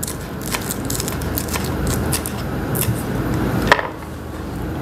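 Kitchen knife chopping spring onion on a wooden cutting board: quick, irregular taps, with one sharper knock near the end.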